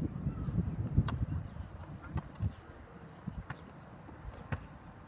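Wind gusting, buffeting the microphone with a low rumble that eases after about two and a half seconds, while a large printed fabric tapestry flaps on its line, giving a few sharp snaps about once a second.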